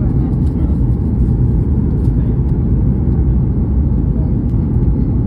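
Jet airliner cabin noise heard from a window seat: a steady low rumble of engines and airflow during the landing approach with the flaps extended.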